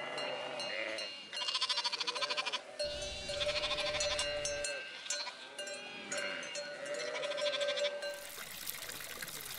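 Sheep bleating, several wavering calls overlapping one another. Near the end a steady rushing hiss takes over.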